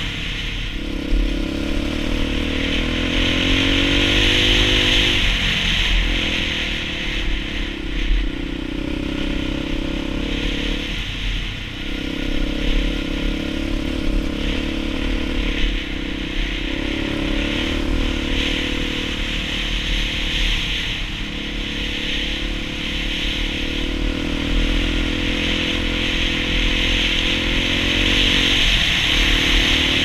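Dirt bike engine running under way on a gravel road, its pitch climbing through the revs and then dropping off several times as the rider shifts or rolls off the throttle, with steady wind and road noise.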